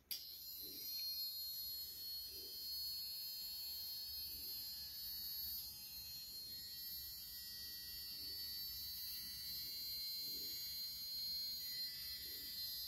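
Hot Wheels Sizzlers toy car's tiny battery-powered electric motor running flat out with its wheels spinning free in the hand, a steady high-pitched whine. It starts abruptly and cuts off right at the end.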